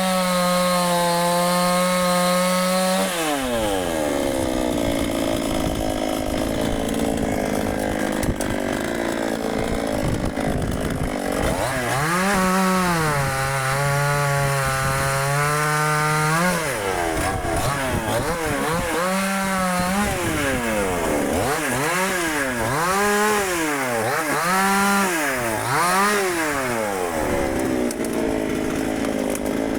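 Dnipro-M petrol chainsaw cutting walnut wood. The engine holds a high pitch at full throttle, sags lower and rougher for long stretches as the chain bites into the wood, and between about 17 and 27 seconds revs up and down roughly once a second.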